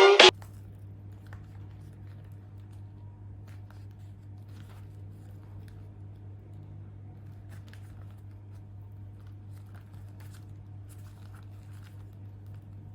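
Music cuts off just at the start, leaving a steady low electrical-sounding hum with faint, scattered small clicks and rustles of handling.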